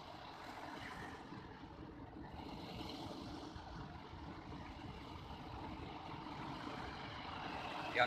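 Surf breaking and washing up a pebble beach: a steady rushing noise.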